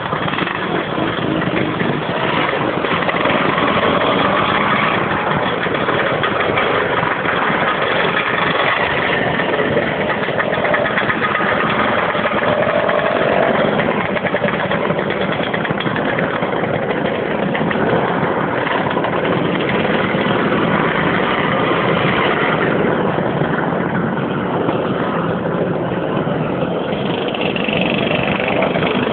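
Many motor scooters riding past in a steady stream, their small engines running together in a continuous drone, with some engines revving up and down.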